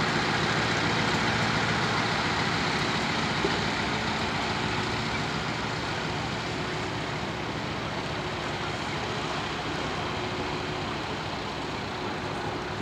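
Heavy diesel trucks running, a steady engine drone that eases slightly in level as it goes.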